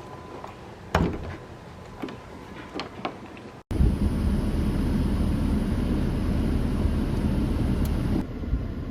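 A few light knocks and clicks, then after an abrupt cut a steady, loud low rumbling noise that fills the rest.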